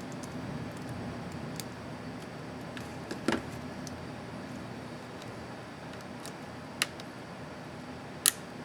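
Small plastic laptop keycap parts clicking as they are handled and fitted: three short sharp clicks, the first about three seconds in and the loudest, over a steady low hum.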